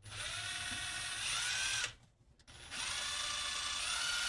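Power drill running in two bursts of about two seconds each, with a short pause between, its motor pitch shifting slightly as it bores holes through Velcro-faced plastic washers.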